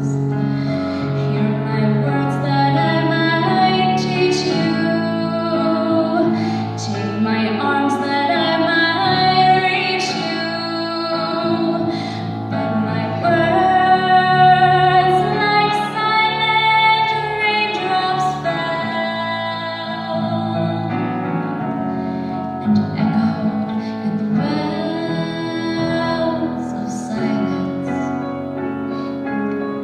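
A woman singing a slow song, with held notes that waver, over a sustained instrumental accompaniment.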